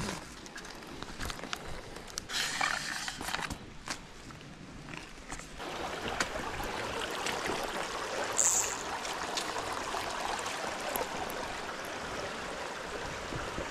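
Rustling and footsteps on the stream bank with a short scratchy rustle about two seconds in, then a small mountain stream running steadily over rocks from about halfway, with a brief high squeak near the middle.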